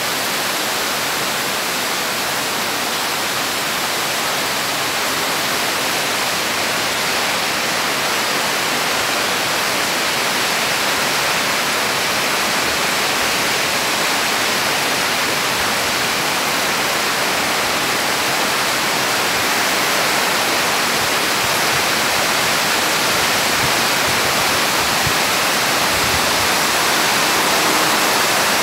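Heavy rain falling steadily on tree and papaya leaves, a dense even hiss that grows slightly louder near the end.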